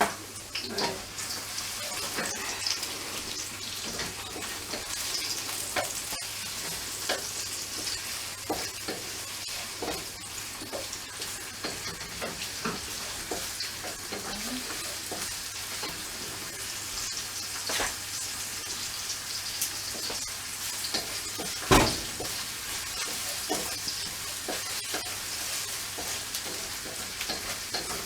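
Chopped onion and garlic sizzling in hot oil in a pan, with a utensil clicking and scraping against the pan as they are stirred. One louder knock on the pan comes a little past three-quarters of the way through.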